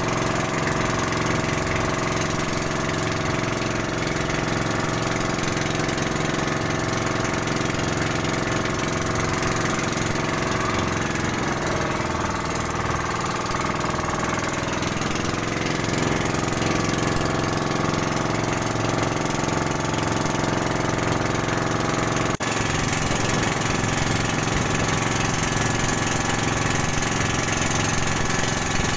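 Outrigger boat's engine running steadily under way, a loud drone with many steady tones over a hiss. Around the middle its pitch dips briefly and recovers.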